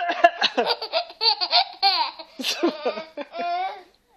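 Small child laughing in quick high-pitched bursts, with a longer drawn-out voice sound near the end.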